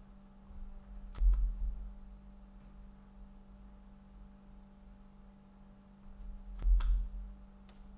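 Snooker balls clicking together during play, two sharp clicks a few seconds apart, each with a short low thud, over a steady low hum.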